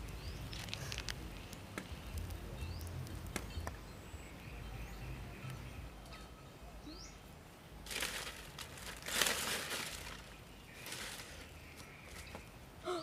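Outdoor scrubland ambience: a few short, high bird chirps over a steady low rumble, with a couple of seconds of loud rustling about two-thirds of the way in and a shorter rustle soon after.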